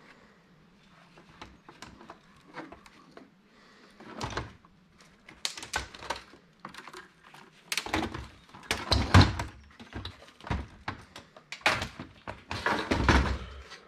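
Irregular knocks, clicks and clatter of metal and plastic parts being handled and pulled apart while dismantling a MICROS touchscreen POS terminal. It is sparse and faint at first, then grows busier and louder after about four seconds.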